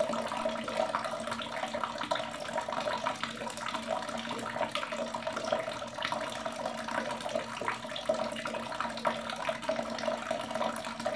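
Water running steadily from a wall tap and splashing over a bare foot as it is washed by hand, then falling onto the tiled floor.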